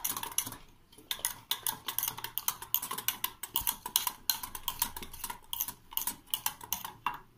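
Wire whisk beating a wet gram-flour batter in a stainless steel bowl: quick clicking and tapping of the wires against the bowl, several strokes a second, with a short pause about a second in.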